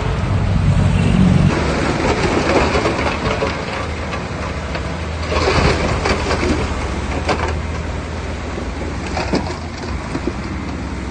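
Heavy diesel earthmoving machinery running with a steady low engine note, joined by several bursts of scraping and rumbling as soil is moved.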